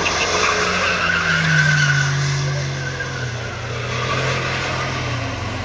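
Classic Ford Mustang doing a burnout, its engine held at high revs and sagging slowly, with the rear tires spinning and squealing on the wet pavement.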